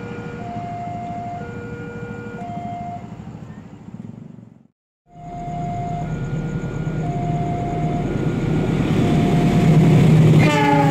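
Railway level-crossing warning alarm sounding two alternating tones, each held about a second, while the rumble of an approaching train grows louder. Near the end the train's horn sounds with a slightly falling pitch. The sound cuts out briefly about four and a half seconds in.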